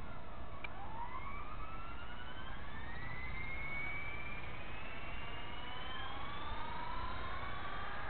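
Blade 230S electric RC helicopter spooling up on the ground: a motor whine starts about half a second in and rises steadily in pitch as the triple-bladed rotor speeds up.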